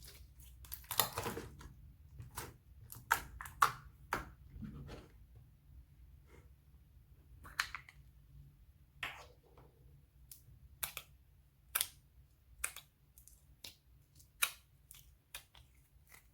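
Slime being squeezed and worked by hand, giving off a string of irregular sharp clicks and pops, with a longer squelch about a second in.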